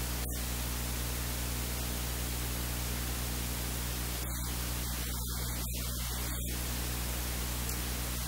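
Steady hiss, like static, over a constant electrical hum at about 50 Hz with its overtones. This is recording noise, not a sound from the cooking.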